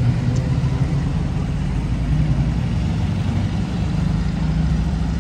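A vehicle engine running, a steady low rumble.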